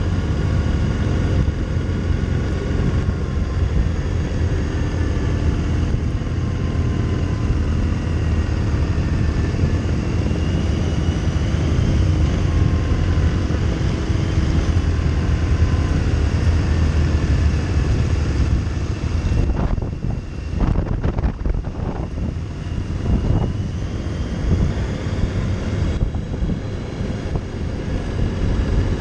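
Riding sound from a touring motorcycle: steady wind rush over the bike mixed with the engine's drone, its pitch slowly rising and falling with the throttle. The sound thins and goes choppy for a few seconds about twenty seconds in.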